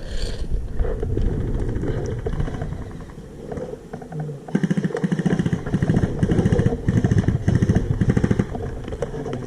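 Airsoft electric gun firing full-auto: a fast, buzzing rattle of shots in long bursts, loudest from about four and a half seconds in.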